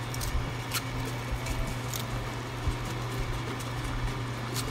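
Wooden spoon pushing cabbage leaves down into a stainless steel pot of broth: soft scattered clicks and rustles of leaves and spoon against the pot, over a steady low hum.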